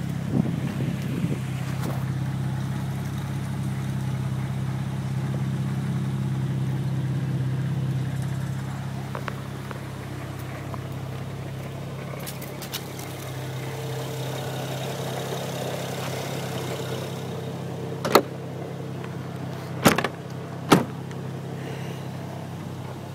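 Car engine idling steadily with a low, even hum. Three sharp knocks come near the end.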